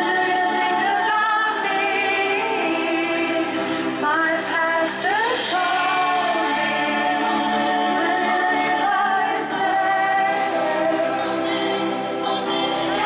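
Live concert music recorded from the audience: a woman singing lead into a handheld microphone, with layered choir-like backing voices.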